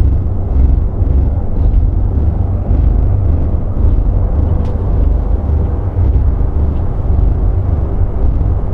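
A loud, steady, deep rumbling drone, with a faint tick a little past halfway.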